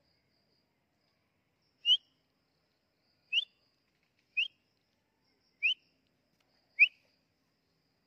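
A person whistling five short, quick rising notes about a second or so apart, a call used to coax a nesting drongo into raising its head. A faint steady insect trill runs underneath.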